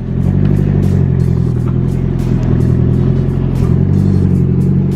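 Car engine running steadily at low revs.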